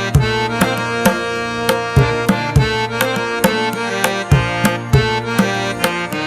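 Instrumental background music: a held melody over a steady, quick drum beat.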